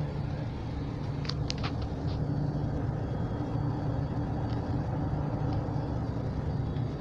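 Steady drone of airliner engines and rushing air heard inside the passenger cabin during the descent to land. A few short clicks sound about a second and a half in.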